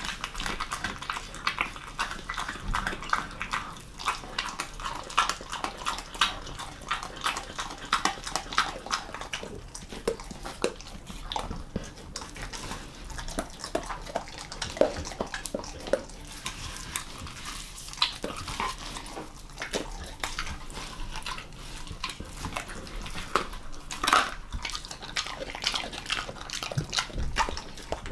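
German Shepherd mix eating raw monkfish: wet chewing, smacking and crunching in irregular clicks, densest in the first ten seconds and then in sparser bursts.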